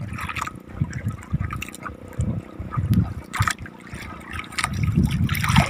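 Water sloshing and trickling around a small fishing boat, with a few light knocks.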